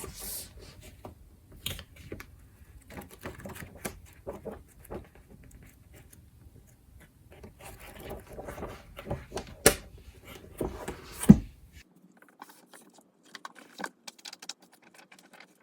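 Glossy magazine pages being flipped and handled, with rustling, and papery clicks and slaps, two of them louder at around ten and eleven seconds.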